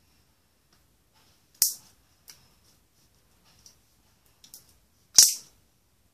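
Green glitter slime being stretched, squished and dropped onto a plastic board, making two loud sharp pops, about a second and a half in and again near the end, with a few faint clicks between.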